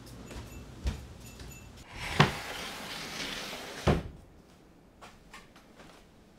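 A wooden sliding door in an old Japanese house is slid along its track, rumbling for about two seconds between a sharp knock as it starts and another as it stops. A single knock comes before it and faint soft footfalls follow.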